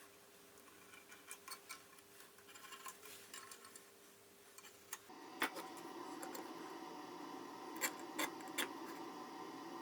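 Faint light clicks and taps of small tools handled against a metal workpiece while it is marked out. About five seconds in a steady low hum comes up, and three or four sharper clicks sound over it.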